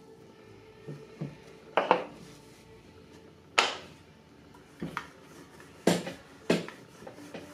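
A string of sharp wooden knocks and clatters, irregularly spaced about a second apart: wooden guide slats, a wooden rolling pin and a block of clay being set down on a wooden work board while a clay slab is prepared.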